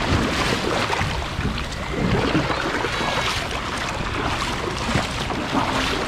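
Water splashing and churning right at the camera as the rider slides off a kids' mini water slide into a shallow pool. It is a steady splashy rush with many small crackles throughout.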